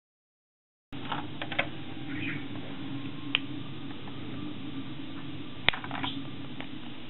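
Silence for about the first second, then a steady low hum with scattered sharp clicks and crackles from a clear plastic food pack being handled.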